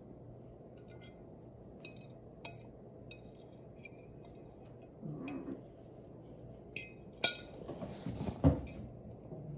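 Scattered light metallic clinks and jingles, a small bell or metal tag tinkling in short separate strikes, from cats playing. A sharp knock comes a little after seven seconds and a dull thump about a second later, the loudest sounds here.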